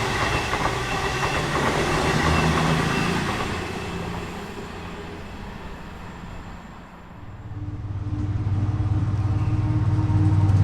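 A train running past on the track, its wheel clatter fading away over the first few seconds. About three-quarters of the way through, a steady low engine hum comes up and grows louder.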